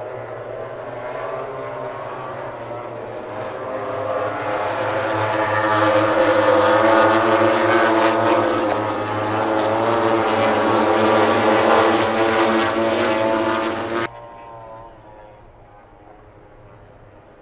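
Engines of a pack of MotoGP racing motorcycles (1000 cc four-cylinder four-strokes) running hard past the microphone. The sound grows louder to a peak, then cuts suddenly, about fourteen seconds in, to a fainter engine sound.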